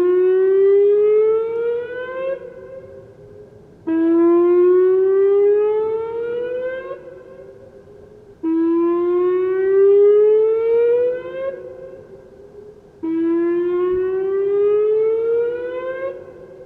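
Whelen 2806 electronic outdoor warning siren sounding its whoop tone for a system test. Each whoop is a rising sweep lasting about three seconds that cuts off abruptly and trails a fading echo, repeating roughly every four and a half seconds.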